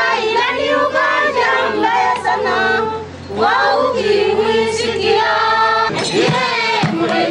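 A group of women singing together in Kinyaturu, a traditional song with voices moving in unison, breaking off briefly about three seconds in before picking up again.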